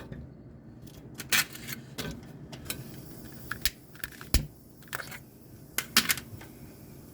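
A string of irregular sharp clicks, about a dozen, as a gas furnace's pilot is being relit at the gas valve and igniter.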